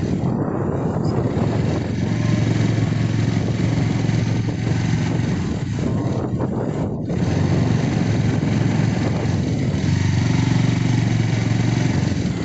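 Motorcycle engine running steadily while riding, its low note stronger in stretches, under a constant rush of wind and road noise.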